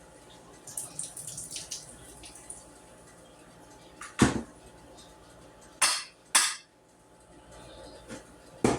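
Kitchen clatter of pots and utensils. A short stretch of crackly hiss comes in the first couple of seconds, then three sharp knocks about four, six and six and a half seconds in, and more knocking right at the end.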